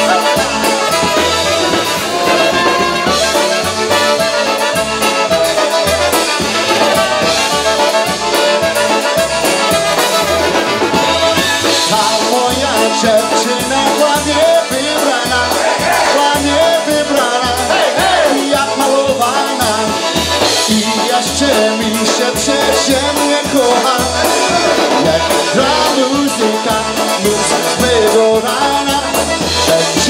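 Polish-American polka band playing live: trumpet, clarinet, piano accordion and concertina over drums and a steady oom-pah beat.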